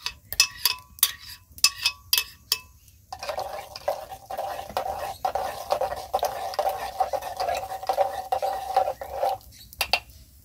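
A metal spoon knocking and scraping inside a glass blender jar, each knock ringing briefly, then stirring atole in a clay pot over a fire. A steady humming tone runs under the stirring from about three seconds in until near the end.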